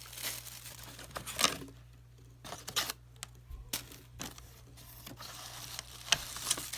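Packaging being handled during unboxing: short crinkling rustles with scattered sharp clicks and taps of plastic parts.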